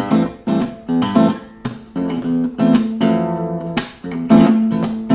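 Faith acoustic guitar played fingerstyle in a rhythmic, funky pattern: A minor chord shapes over changing bass notes, with sharp plucked attacks every few tenths of a second and the chords ringing between them, some bass notes hammered on.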